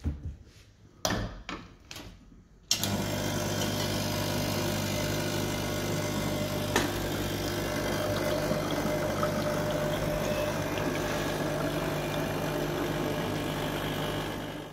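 Electric coffee machine running with a steady low hum, starting about three seconds in and cutting off abruptly at the end. A few knocks and clicks come before it starts, and there is one sharp click in the middle.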